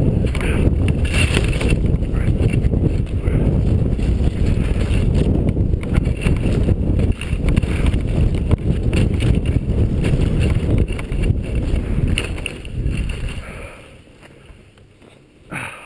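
Wind buffeting the camera microphone and skis hissing and scraping over packed snow on a fast downhill run, with frequent short edge scrapes. The rush dies away sharply near the end as the skier slows.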